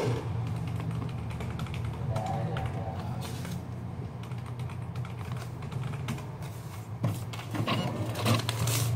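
Paper handling: a passbook and a paper slip being picked up, smoothed and folded, with scattered light clicks and taps that grow busier near the end, over a steady low hum.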